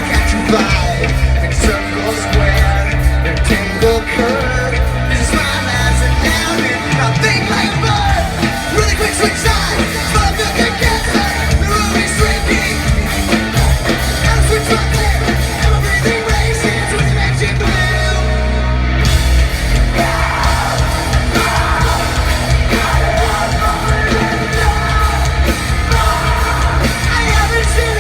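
Post-hardcore band playing live and loud, with yelled and sung vocals over distorted guitars, bass and drums. About two-thirds of the way through, the band thins out for a moment before the full band comes crashing back in.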